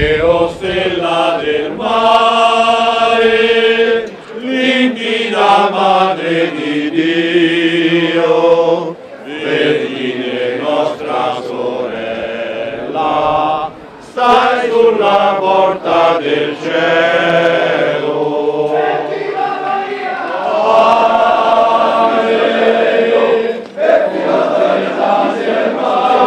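A group of men singing a devotional chant together, holding long notes in phrases broken by short pauses every few seconds.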